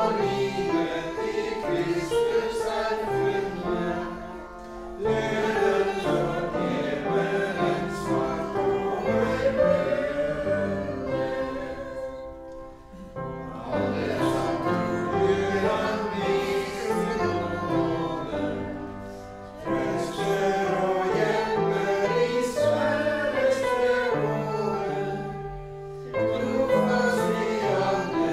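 Congregation singing a hymn in unison with upright piano accompaniment, in long phrases with short breaks between them.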